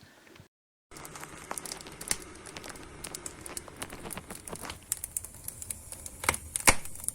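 Firewood burning in a closed fireplace, crackling steadily with many small sharp clicks and a few louder pops near the end. A moment of dead silence cuts in less than a second in.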